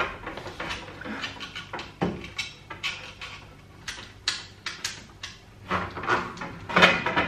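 Irregular wooden knocks and clatters from an IKEA bed frame and its slatted base being fitted together by hand, with a louder cluster near the end.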